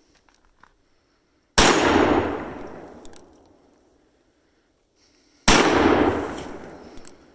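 Two shots from a revolver chambered in .500 S&W Magnum, about four seconds apart, each a very loud blast whose rumble dies away over about a second and a half. A faint sharp tick follows each shot about a second and a half later.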